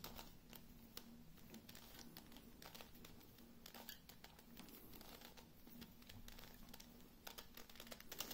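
Faint, irregular plastic clicks and clacks of a Megaminx 2x2 (Kilominx) twisty puzzle as its faces are turned by hand in quick succession, over a low steady hum.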